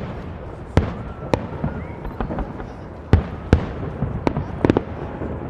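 Fireworks display: aerial shells bursting in a series of sharp bangs, about six in a few seconds, the loudest a little over three seconds in and again half a second later, over continuous crackle and echo.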